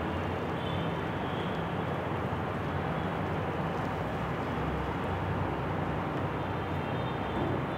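Steady background noise with a low hum, unchanging throughout.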